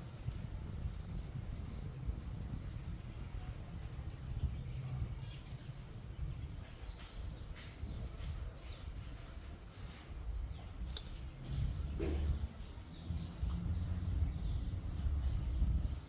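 Small birds chirping: short, sharp high chirps that drop in pitch, several of them scattered through the second half, over a steady low rumble of outdoor background noise.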